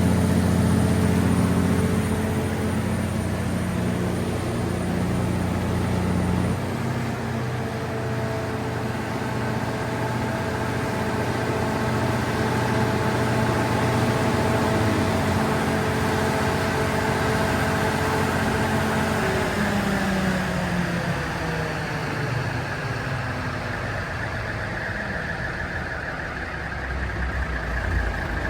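Diesel engine of a 350 kW Cummins/Onan generator set running steadily. Its note shifts about a quarter of the way in, then falls in pitch over several seconds about two-thirds of the way through as the engine slows.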